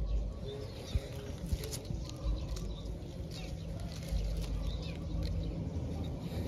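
Leaves and twigs rustling with scattered small crackles as a kitten paws and moves about in leafy undergrowth.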